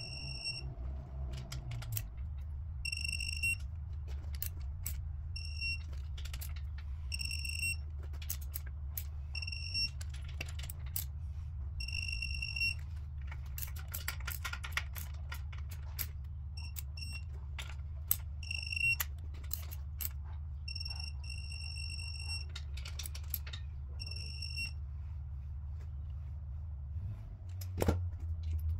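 Electronic beeps from a digital torque wrench tightening engine main bearing cap bolts: a single high tone, sounding again and again every second or two, some short and some held near a second, with sharp ratchet clicks between. The beeps signal that the set torque or angle has been reached. A steady low hum runs underneath, and a single sharp knock comes near the end.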